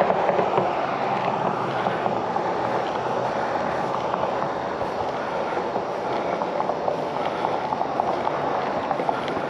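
Mountain bike rolling slowly on a concrete sidewalk while pedalled uphill in its lowest gear: a steady noise of tyres and drivetrain with small scattered rattles and ticks.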